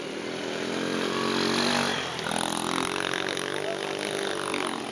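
Small junior motocross bike's engine revving hard as it pulls up a dirt jump, getting louder toward the middle and easing off near the end.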